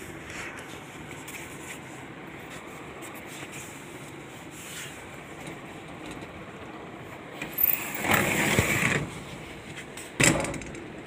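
Steady hum inside a Toshiba traction service elevator car. About eight seconds in comes a loud rattling noise lasting about a second and a half, and about two seconds later a single sharp bang.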